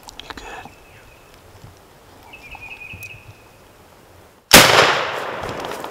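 A single shotgun shot fired at a wild turkey gobbler about four and a half seconds in, by far the loudest sound, ringing out and fading over about a second and a half. Before it, light rustling and a brief run of high chirps.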